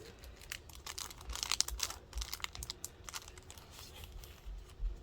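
Journaling sticker and paper packs handled by hand, their packaging crinkling in quick irregular crackles, with a denser burst of crinkling about a second and a half in.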